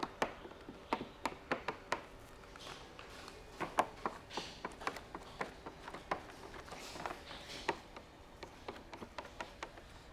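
Plastic squeegee being worked over wet paint protection film on a car hood: irregular soft taps and short squeaky strokes, two or three a second.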